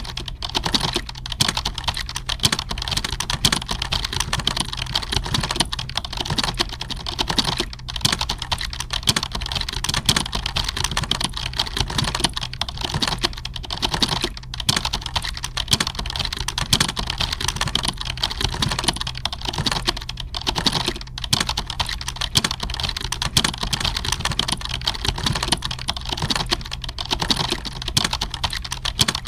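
Computer keyboard typing: a fast, dense, unbroken clatter of keystrokes, with only a few very short pauses.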